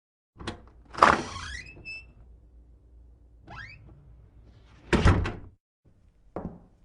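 Door sound effect: a latch click, a door creaking open with rising squeaks, a shorter rising creak, then a loud bang as it shuts, followed near the end by the first of a series of knocks.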